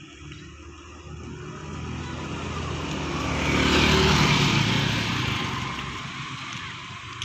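A motor scooter passes close by, its engine growing louder to a peak about four seconds in and then fading away.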